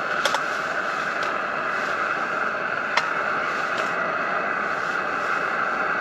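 A camping stove and the frying pan on it give a steady hiss throughout. A few light knocks come from a knife on a wooden chopping board as black pudding is sliced.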